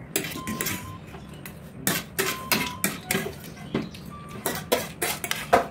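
Metal forks clinking and scraping against ceramic plates while noodles are eaten: a string of sharp, irregular clicks, with a few short squeaks from the scraping.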